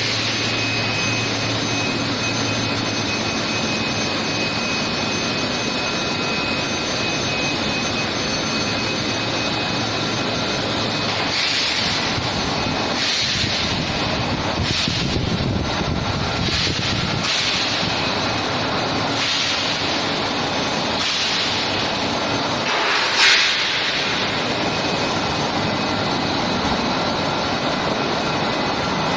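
Industrial machinery running loudly and steadily: a dense rushing noise with a low hum and thin steady high-pitched tones. From about a third of the way in, short louder hissing surges come every second or two, the loudest one about four-fifths of the way through.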